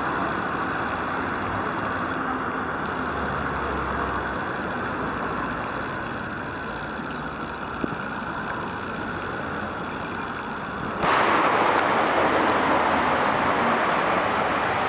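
Steady street ambience of road traffic beside a busy city street. About eleven seconds in, a louder rushing noise sets in abruptly and carries on.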